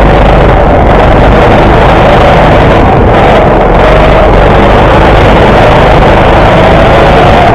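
Go-kart engine running hard through a lap, heard close up from the kart itself. Its pitch dips slightly about four seconds in and climbs again near the end.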